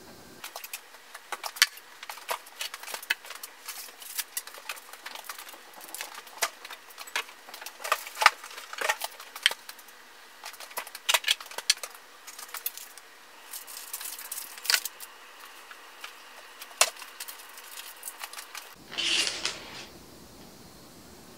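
Irregular clicks, taps and light crinkles of kitchen items and packaging being handled on a wooden countertop, ending in a short rustle about nineteen seconds in.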